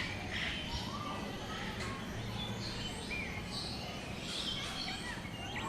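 Several birds chirping and whistling in short, overlapping calls over steady background noise.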